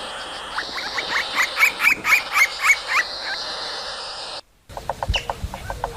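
A bird calling a rapid series of about nine sharp notes that grow louder, over a steady high hiss. A brief break follows, then a different run of short, quick, evenly spaced notes.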